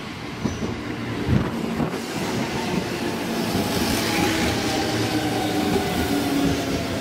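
JR 205 series electric train pulling into the station and slowing. Its wheels click over rail joints, and faint tones slowly fall in pitch as it brakes, growing louder as the cars pass close by.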